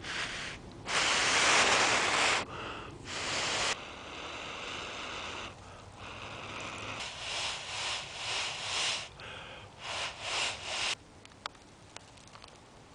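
A person blowing into a hand-held bundle of dry grass tinder around a glowing cramp ball ember to coax it into flame. It comes as a series of breaths of rushing air: a long strong blow early on, then several short blows about a second in between, and the bundle smokes.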